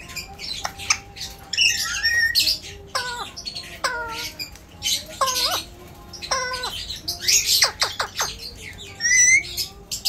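Alexandrine parakeet giving a string of short squawks and chirps, many of them sliding down in pitch, with a few sharp clicks between them.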